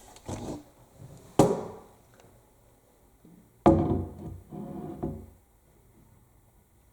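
Knocks and clatters from loading a front-loading washing machine: two sharp thumps with a short ring, about a second and a half in and nearer four seconds in, with softer handling knocks between them.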